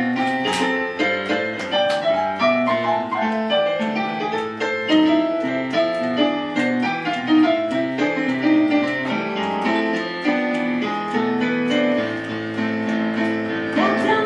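Digital stage piano playing an instrumental break of chords and melody notes. A woman's singing voice comes back in right at the end.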